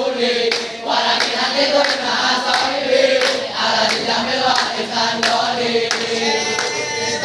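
A large group of teenage boys chanting a yel-yel, a rhythmic group cheer, sung together in unison.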